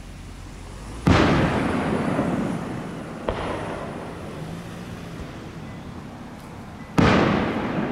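Aerial firework shells bursting: two loud booms about six seconds apart, each rolling away in a long fading echo, with a smaller sharp crack between them.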